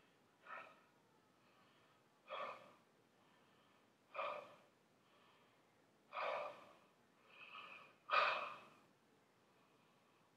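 A person breathing hard in short gasps, about one every two seconds, the last one the loudest.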